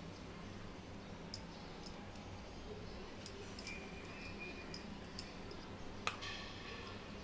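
Steel spoon spreading chutney on bread slices: a run of faint light clicks and scrapes, with one louder metallic clink that rings briefly about six seconds in.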